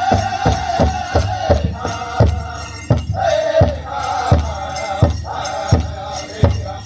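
Powwow drum group singing a men's chicken dance song, high voices in chorus over strokes of a large shared drum. The drumbeat runs at about three strokes a second at first, drops out briefly about three seconds in, then comes back at a slower, even beat of about one and a half strokes a second.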